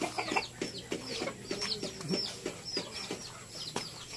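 Native chickens clucking, with a rapid run of short, high chirps that fall in pitch throughout.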